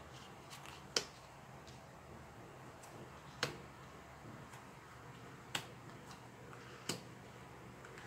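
Oracle cards being dealt one at a time and snapped down onto a bamboo table mat: four sharp snaps, spaced about one and a half to two seconds apart, with a few fainter taps between them.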